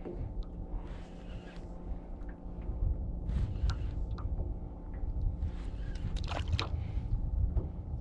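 Small waves lapping and slapping against the side of a small fishing boat, with wind rumbling on the microphone and a faint steady hum underneath. Two louder splashes come about three and a half seconds in and again just past six seconds.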